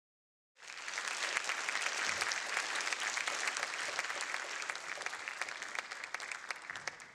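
Audience applauding, a dense patter of many hands clapping. It starts about half a second in and slowly dies away near the end, welcoming a speaker onto the stage.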